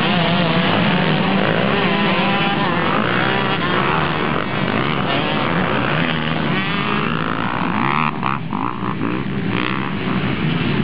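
A pack of motocross bikes revving hard and accelerating away together off the start line, many engines rising and falling in pitch at once.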